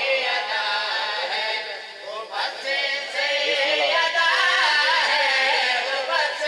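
A man singing verses of a devotional qasida into a microphone, in long wavering held notes, with a brief pause about two seconds in.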